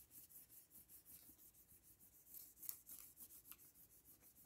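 Faint, quick rubbing strokes of fingers smoothing aluminium foil tape flat onto card, with a few slightly louder ticks near the middle.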